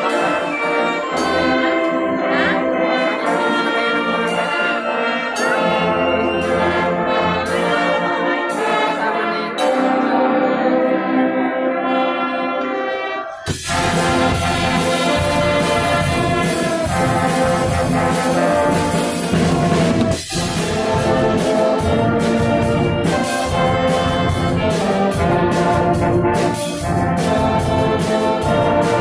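Marching band's brass section playing a field-show piece, trumpets and trombones sounding together. About halfway through, the music turns abruptly fuller, with a heavy low end and a steady beat.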